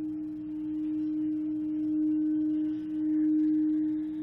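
A single steady drone tone held under a guided meditation, gently swelling and easing every second or so.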